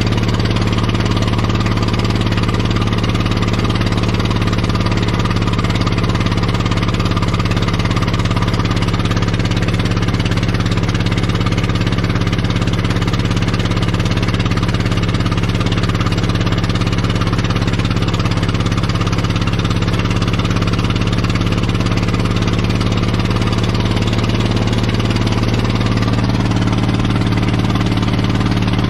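An engine idling steadily, with a slight change in its note near the end.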